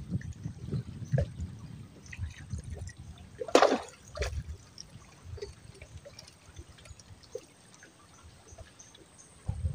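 Water sounds of small splashes and drips, with one brief louder splash about three and a half seconds in and a smaller one just after.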